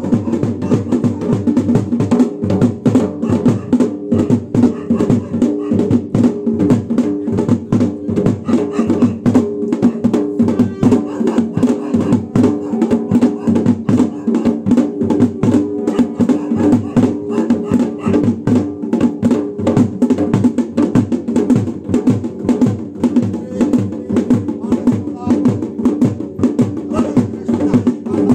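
Garhwali dhol drum played in a fast, steady rhythm, dense strokes without a break, the beat for the Pandav Nritya dance.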